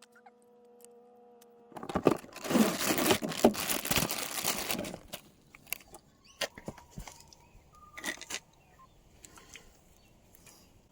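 A faint steady hum, then about three seconds of loud crinkling and rustling, like packaging or plastic being handled, followed by scattered light clicks and knocks.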